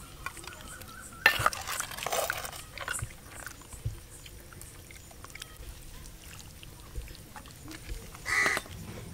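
A metal ladle scooping mutton curry out of a clay pot, with a sudden clatter and wet splashing a little over a second in, then faint scrapes. Near the end a crow caws once.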